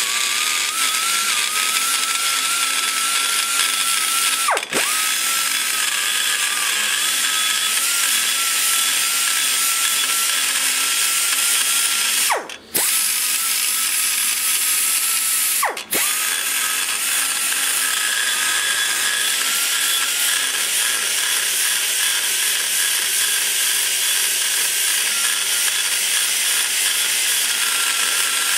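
Die grinder spinning a large carbide burr, cutting aluminum in a cylinder head's exhaust port around the valve-guide boss: a steady high whine with hiss over it. Three times the grinder briefly slows, its whine sagging, and picks straight back up, about five, twelve and sixteen seconds in; the middle dip is the longest.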